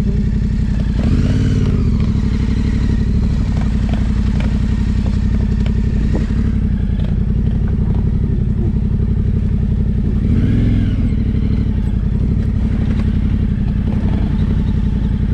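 Yamaha Ténéré 700's parallel-twin engine running at low revs on rough ground, rising briefly in revs and dropping back twice, about a second in and again about ten seconds in, with scattered knocks and clatter.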